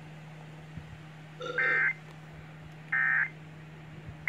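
NOAA Weather Radio Emergency Alert System end-of-message signal: short buzzy bursts of digital data tones, two about 1.4 s apart with a third starting at the very end, marking the close of the warning. A faint steady hum runs underneath.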